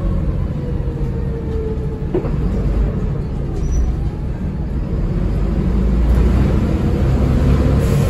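Interior of a moving Volvo B7TL double-decker bus: the steady low rumble of its straight-six diesel engine and road noise, with a faint whine that slowly falls in pitch and then rises again. A brief knock comes about two seconds in, and the noise grows a little louder after about six seconds.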